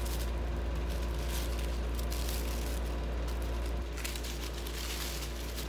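A steady low hum that drops a little about four seconds in, with faint rustling and crinkling of tissue paper as a gold string is untied from a wrapped glass container.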